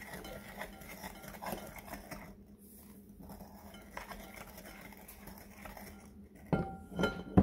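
Electric hand mixer beating eggs and sugar in a glass bowl, its metal beaters rattling and clinking against the glass over a faint steady motor hum. Several louder knocks near the end.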